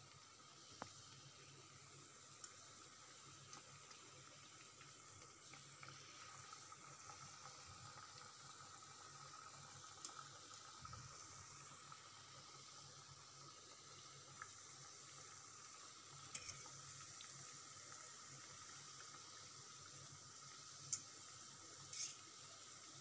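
Layered khaja pastries deep-frying in oil, giving a faint steady sizzle. A few light clicks of a fork against the pan come through it, the loudest two near the end.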